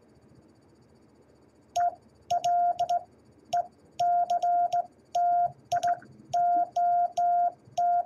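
Morse code sidetone, a steady beep of about 700 Hz, keyed by hand on a brass straight key. It starts about two seconds in and spells out "election" (E L E C T I O N) in dits and dahs, with a sharp click at the edges of the strokes.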